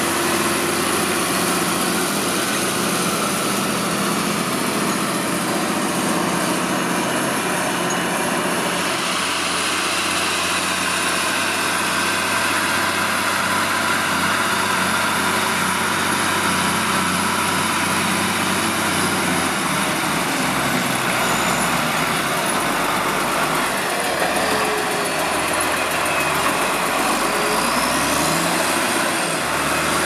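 Belarus MTZ 1221.2 tractor's six-cylinder diesel engine running steadily while pulling a reversible plough through the soil. Its low engine note changes about two-thirds of the way through.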